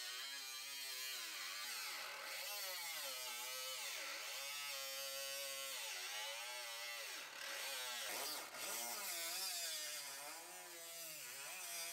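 Pneumatic die grinder with a cut-off disc cutting through a sheet-steel quarter panel: a steady whine whose pitch sags and recovers every second or so as the disc bites into the metal and eases off, over a hiss of grinding.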